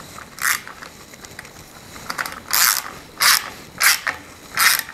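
Socket ratchet clicking in short bursts, five or six strokes, as the nut on an M6 stud is tightened down.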